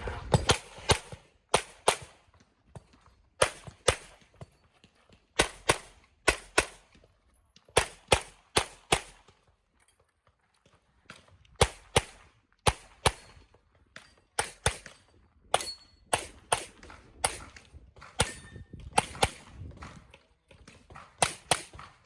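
Handgun shots fired in quick pairs and threes, an IPSC competitor shooting a stage, with a second or two between strings and a longer pause about ten seconds in.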